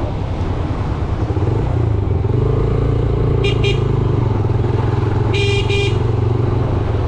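A Yamaha YBR 125G's single-cylinder 125 cc engine runs steadily under way in traffic. A high-pitched horn beeps twice about three and a half seconds in, then twice more about two seconds later.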